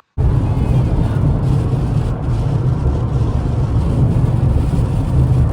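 Car on the move: a loud, steady road and engine rumble that cuts in abruptly just after the start.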